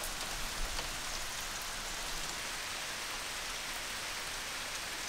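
Steady rain falling, an even hiss with a few faint separate drops.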